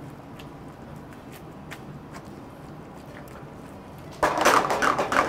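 A spatula stirring spaghetti in a thickening carbonara egg sauce in an aluminium frying pan: faint light taps and scrapes against the pan, then a sudden louder stretch of scraping and clattering about four seconds in.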